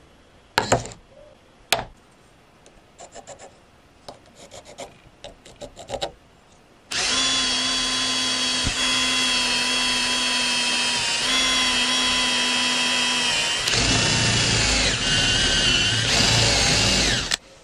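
A few knocks and light clicks, then about seven seconds in a handheld electric drill starts and runs with a steady whine, boring a hole through stacked plywood. Near the end the sound gets rougher as the bit cuts, and the pitch sags briefly under load twice before the drill stops suddenly.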